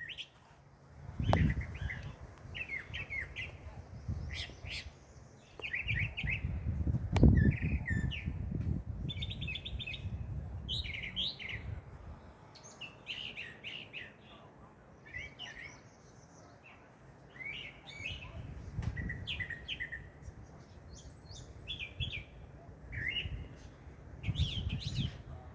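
Birds chirping busily, with many short, high chirps coming one after another throughout. Underneath runs a low rumble, which swells briefly about a second in and again around seven seconds in.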